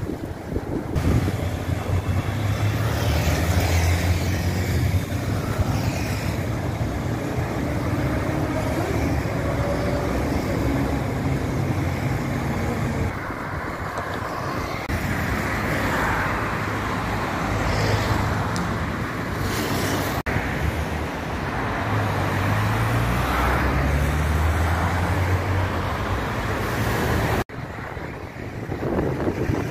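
Road traffic on a busy avenue: cars passing with engine and tyre noise that swells and fades. The sound breaks off abruptly twice, about two-thirds through and near the end.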